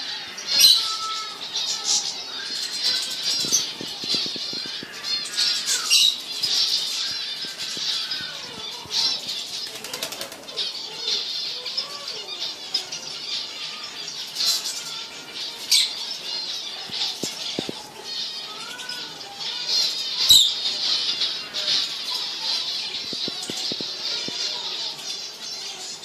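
A flock of aviary finches, European goldfinches among them, chirping and twittering without a break. Now and then there is a sharp flutter of wings.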